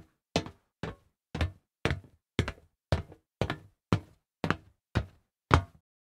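Footsteps walking on solid metal at an even pace of about two steps a second, each step a hard knock that dies away quickly. The steps stop near the end.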